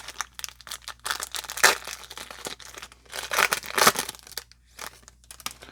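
Plastic wrapper of a baseball card pack crinkling and tearing as it is torn open, in irregular crackling bursts, the loudest about one and a half seconds in and again around three to four seconds in, then dying down near the end.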